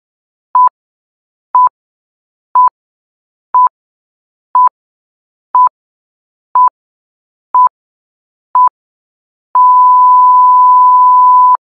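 Electronic beep tone of one steady pitch: nine short beeps evenly spaced a second apart, then one long beep held for about two seconds. It sounds like a countdown or censor bleep.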